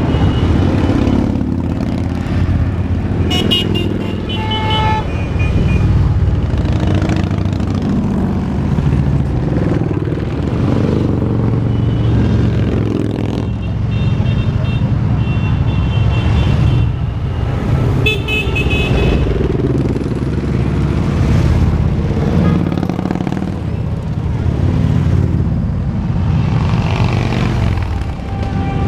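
A parade of motorcycles riding past one after another, engines running loud and continuous, swelling and fading as each machine goes by. Horns toot several times: a few seconds in, around the middle, and again about two-thirds through.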